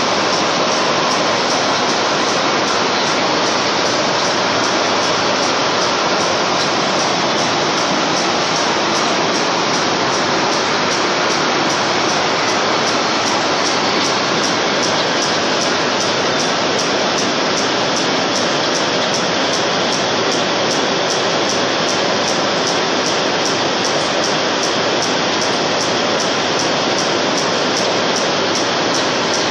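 Textile carding machine running in a spinning mill, a loud, steady rushing noise that does not change.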